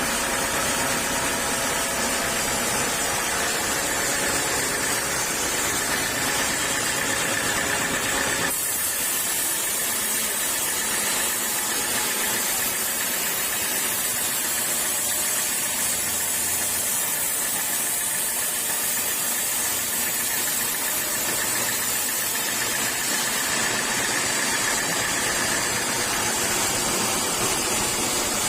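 Sawmill saw machinery running steadily with a dense mechanical hiss and hum. About eight seconds in the sound changes abruptly, losing its low rumble and turning brighter and hissier.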